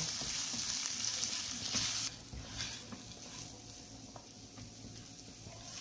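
Amla (Indian gooseberries) and ground spices sizzling as they fry in oil in a pan, stirred with a silicone spatula. The sizzle cuts off abruptly about two seconds in, leaving fainter frying and a few light spatula scrapes.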